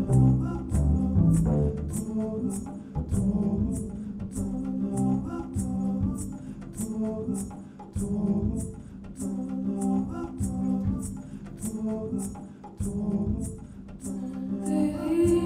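Upright double bass playing a slow line of sustained low notes over a steady, light percussive ticking of about two ticks a second. A woman's voice begins singing about a second before the end.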